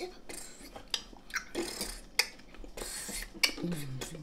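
Close-up eating sounds: irregular crisp clicks and smacks of someone chewing hot chicken bits, with a brief low hum near the end.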